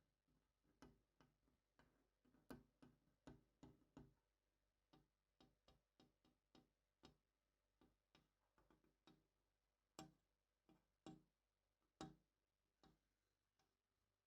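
Faint, irregular light tapping and clicking, two or three small knocks a second, with a few louder knocks in the second half.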